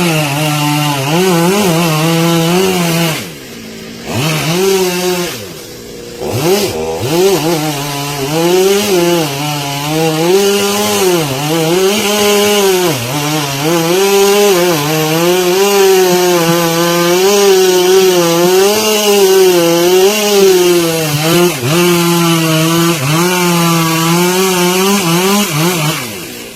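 Two-stroke chainsaw cutting into wood at high revs, its pitch dipping and recovering again and again as the chain bogs under load. It eases off twice early on and stops near the end.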